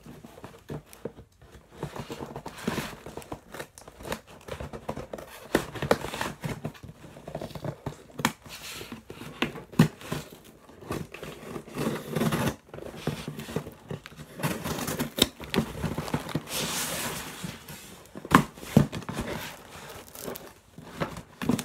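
A cardboard shipping box being opened with scissors: the blades cutting through packing tape, tape tearing and cardboard rustling and crinkling, with scattered clicks and knocks.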